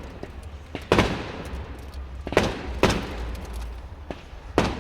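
Fireworks bursting overhead: four loud bangs at uneven intervals, two of them close together in the middle, each trailing off in a rumbling echo, with smaller crackles between.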